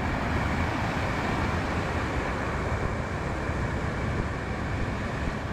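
Steady rushing of water at a waterfall.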